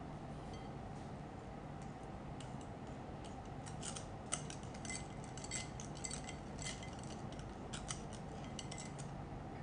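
Wire whisk beating whipping cream into a cream cheese mixture in a glass bowl, its wires clicking and tapping against the glass in quick irregular strokes that grow thicker from about four seconds in.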